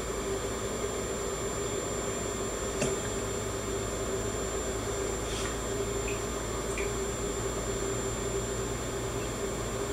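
Portable water ozonator running: a steady machine hum from the ozone generator with ozone gas bubbling through water in a glass jar, and a few faint ticks.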